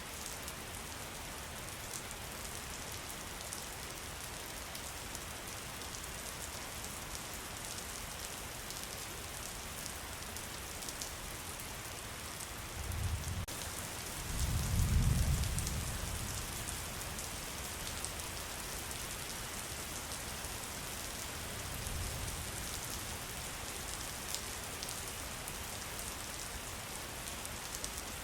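Steady rain falling, an even hiss with the light patter of individual drops. A low rumble swells and fades about halfway through, and comes back more faintly near the end.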